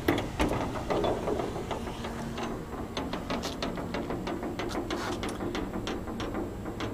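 Steady low electrical hum with many light clicks and rustles scattered over it, thickest through the middle.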